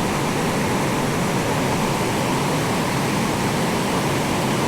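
Steady rushing of flowing stream water, an even hiss and rumble with no breaks.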